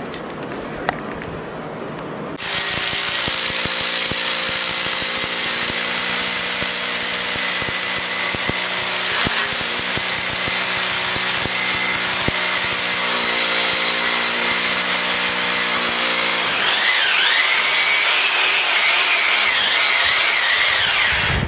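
Corded hammer drill boring a hole into a plastered wall for a TV wall-mount bracket. It starts about two seconds in and runs steadily; near the end the sound changes and a wavering high whine comes in.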